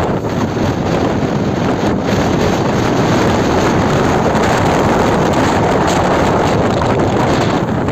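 Strong wind buffeting the microphone, loud and steady, over the rushing noise of a longboat under way in a storm.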